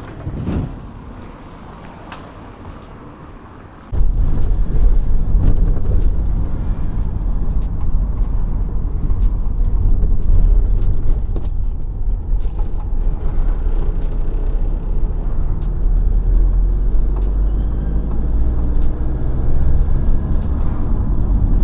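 Vehicle on the move: after a quieter stretch, a loud, steady, low rumble of road and engine noise starts suddenly about four seconds in and cuts off abruptly at the end.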